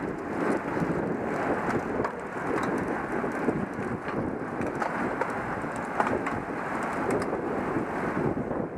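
Wind buffeting the microphone of a camera riding along with a group of road cyclists: a steady, muffled rumbling noise with a few faint clicks.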